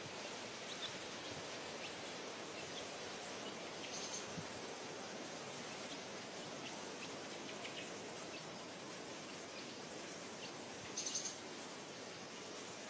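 Faint, scattered peeping of young chicks over a steady background hiss, with a brief louder chirp about eleven seconds in.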